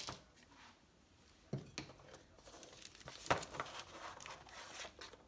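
Plastic packaging being torn open and crinkled by hand: a sharp rip about a second and a half in, then irregular crinkling toward the end.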